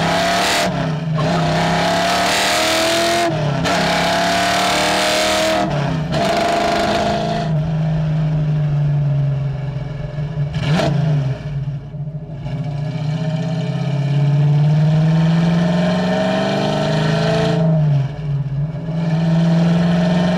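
1965 Ford Mustang's mildly built 289 V8, breathing through full-length headers, an X-pipe and Black Widow Venom 250 mufflers, heard from inside the cabin as the car pulls hard. The revs climb and break off briefly three times in the first six seconds as it shifts up through the four-speed. It then settles into a steadier cruise, the note sagging and rising with the throttle, and climbs again near the end.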